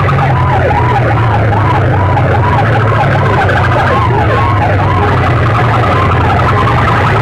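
Stacked horn loudspeakers of a competition sound rig blaring a warbling siren tone at very high volume. The tone rises and falls about three times a second over a steady low drone.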